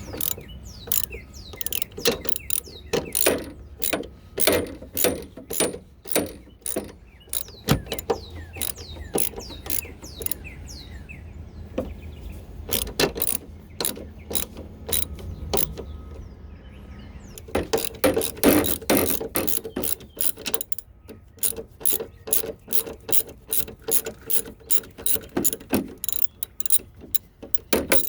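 Hand socket ratchet turning out the strut assembly's mounting bolts: runs of quick sharp pawl clicks, several a second, as the handle is swung back and forth, with short pauses between runs.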